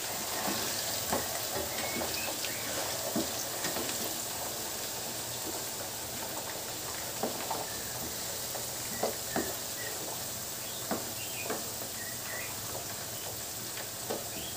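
Potato cubes frying in hot oil in a pan: a steady sizzle with scattered sharp crackles and ticks, as a wooden spatula stirs and turns them.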